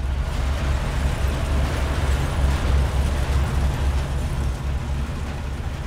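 Earthquake shaking a shop: a deep, continuous rumble with a dense clatter and crash of falling goods and shelving over it, swelling about half a second in.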